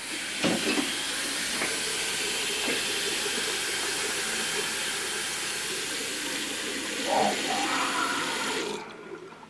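Water running from a bathroom sink tap while hands are washed under it, steady throughout, then shut off abruptly near the end.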